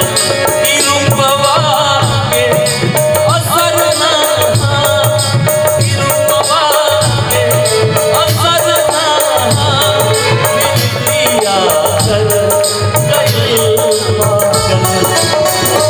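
Live Bhojpuri folk-song accompaniment: a harmonium and keyboard melody over a dholak drum and a steadily jingling tambourine, keeping a brisk, even rhythm.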